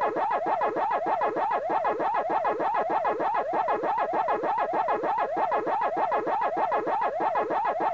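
Pac-Man's electronic 'waka-waka' eating sound effect: a pitch sweeping up and down over and over, a few times a second, without a break.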